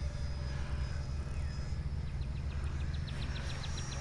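Outdoor ambience: a steady low rumble, with a rapid run of high, evenly spaced chirps from a small animal starting about halfway through.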